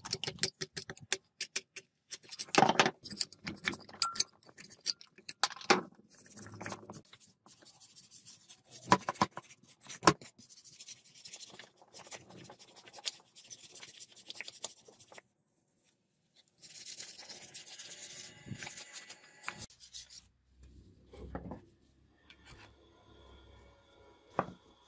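A screwdriver and a scraper blade scraping and prying burnt rust and crusted debris off a rusty truck air compressor. It starts with irregular clicks and sharp knocks, then turns into long stretches of rasping scraping, with a brief pause about fifteen seconds in.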